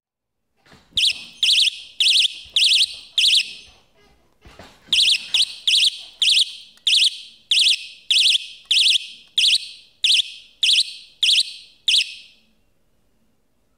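A homemade earthquake alarm's small electronic alarm unit going off. It gives shrill warbling beeps about two a second, a run of five, a short break, then about fourteen more before it stops. The alarm sounding signals that its trigger has been tripped, as a tremor would trip it.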